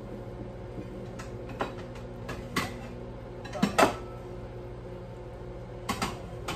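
Ceramic plates knocking and clinking as they are taken down from a kitchen cupboard: a few scattered sharp clacks, the loudest pair a little under four seconds in. A steady low hum runs underneath.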